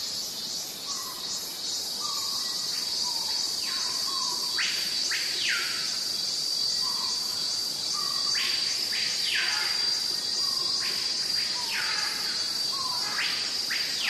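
Steady high-pitched insect chorus droning throughout, with a bird repeatedly giving short falling calls, often two in quick succession, every couple of seconds.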